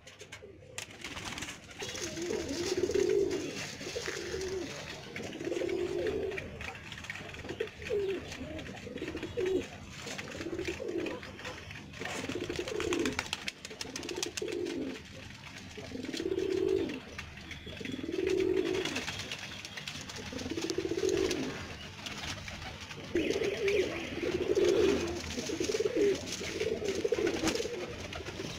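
Domestic pigeons cooing, a run of low coos repeating every second or two.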